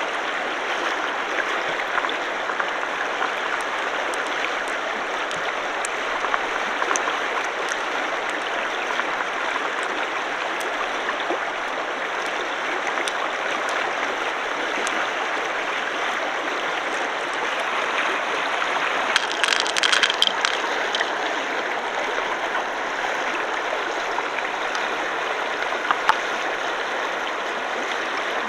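Shallow stream water running steadily. About two-thirds of the way through comes a short cluster of sharp clicks, and two more follow near the end.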